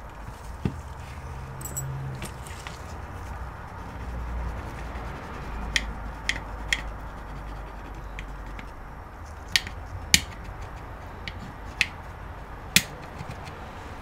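Hard plastic casing of an ARRIS cable modem clicking and knocking as it is turned over and handled in gloved hands: about eight sharp clicks, scattered irregularly.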